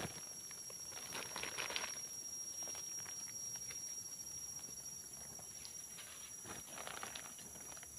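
Crackling rustles of a plastic sack being handled and boots stepping on dry leaf litter, in scattered bursts, thickest about a second in and again near the end.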